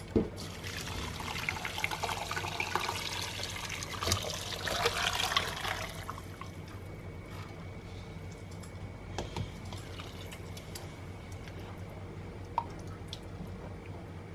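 Meat broth being poured through two stacked sieves into a pot: a stream of liquid for about six seconds, then quieter trickling and dripping with a few small ticks.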